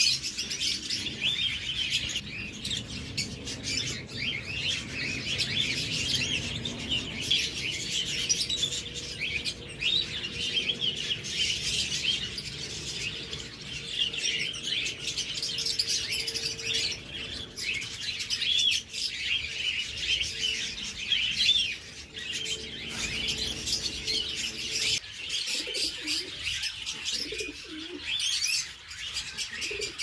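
Dense, continuous chirping and twittering of many small cage birds kept together.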